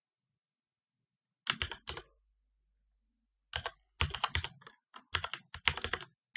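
Computer keyboard being typed on: a short run of keystrokes about a second and a half in, a pause, then a longer run of keystrokes through the second half.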